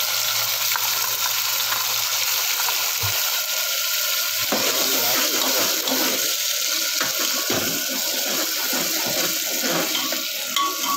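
Masala paste sizzling in hot oil in a pressure cooker, a loud steady hiss that starts as the paste goes in. From about four seconds in, a spoon scrapes and stirs the paste against the pot.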